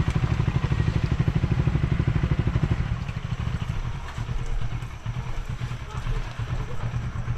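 Motorcycle engine running with a fast, even pulsing, which eases off about three seconds in to a quieter, steadier hum.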